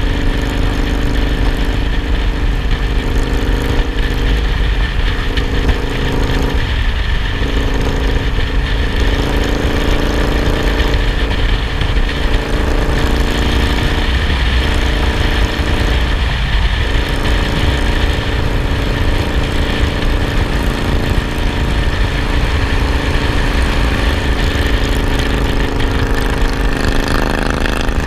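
Twin-cylinder cruiser motorcycle engine running at road speed, heard from the handlebars with a heavy low rumble of wind and road noise. The engine note breaks off briefly about four times, as the throttle eases or gears change, and it shifts near the end.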